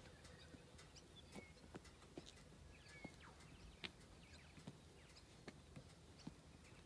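Near silence: faint outdoor background with scattered soft ticks and a few short, high chirps.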